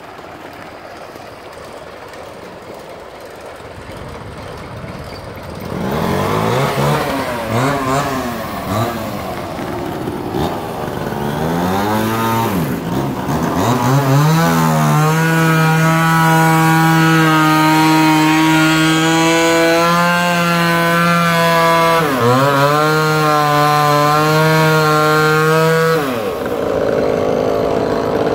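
Two-stroke chainsaw that starts about six seconds in and is revved up and down several times, then held at high speed for about eleven seconds while cutting timber, with one brief dip in pitch, before dropping back.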